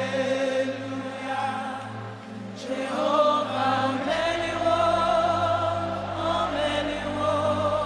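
Gospel worship music: voices singing a slow, flowing song over steady held chords, with a deeper bass note coming in about four seconds in.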